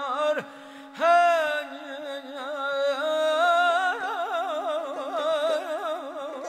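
Azerbaijani mugham: after a sung word ends, a wordless, heavily ornamented melodic line with fast vibrato-like trills enters about a second in, over a steady held drone note.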